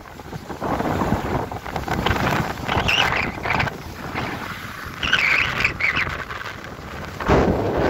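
Wind buffeting the microphone in uneven gusts, over the hiss and scrape of sliding down a packed-snow track.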